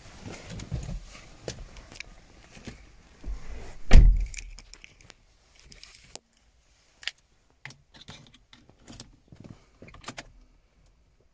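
Car keys jangling and small clicks of handling in the cabin of an Opel Astra J, with one heavy thump about four seconds in.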